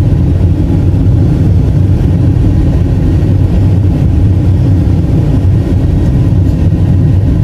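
Car driving steadily along a paved road: an even low rumble of engine and road noise, heard from inside the cabin.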